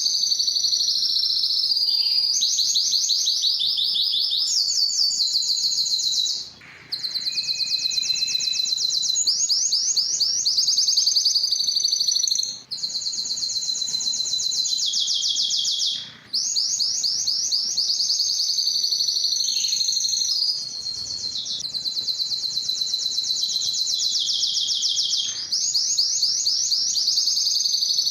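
Spanish timbrado canary singing a continuous song of fast, high rolled trills, switching from one trill to the next every second or two. The song breaks off briefly about 7, 13 and 16 seconds in.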